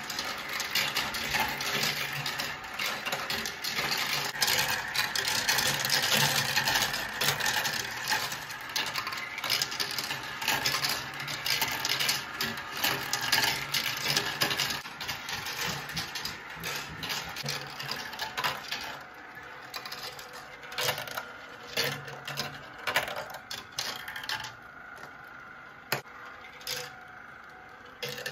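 Marbles rolling and clattering through a plastic marble-run track, many clicks and rattles at once over a steady whir from the chain lift. The clatter thins out to scattered clicks over the last several seconds.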